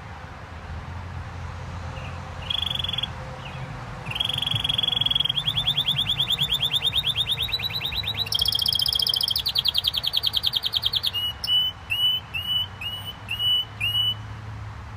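Gloster canary singing. A short note about two and a half seconds in, then a long run of rapid trills that jumps to a higher pitch partway through. It ends in a string of separate upswept notes that stops shortly before the end. A low steady hum runs underneath.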